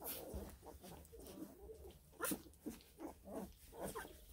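Week-old bluetick coonhound puppies whimpering faintly, a string of short squeaks and whines, with a brief scuff about two seconds in.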